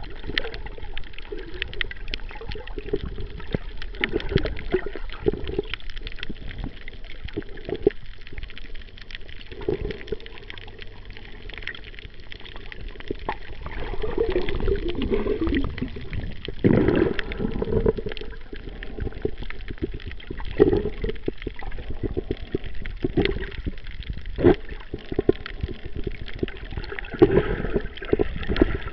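Water gurgling and sloshing around a camera held underwater while snorkelling, with many small clicks and a swell of water noise every few seconds.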